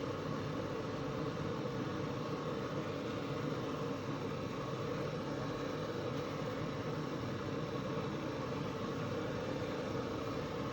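Battered chicken pieces deep-frying in a wok of hot oil: a steady sizzling and bubbling.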